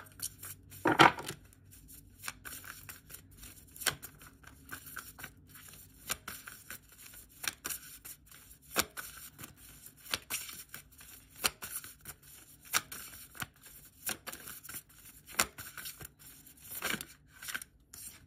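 A deck of tarot cards being shuffled by hand: a string of irregular soft flicks and slaps of cards against each other, loudest about a second in. Near the end a card is set down on the table.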